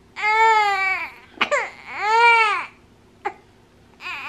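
Newborn baby crying in a run of high wails: two longer cries in the first three seconds with short ones between, and another starting near the end. The mother puts the crying down to a full nappy.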